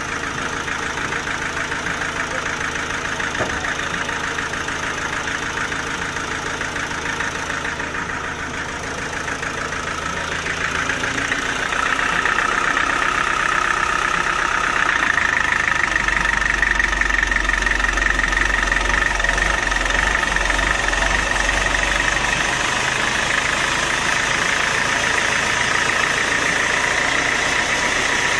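Sawmill machinery running steadily. About a third of the way in it grows louder and a steady high whine comes in.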